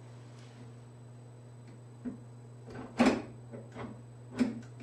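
A few short knocks and clunks as the benchtop oscillating spindle sander's tilting table is handled and adjusted, the loudest about three seconds in, over a steady low hum.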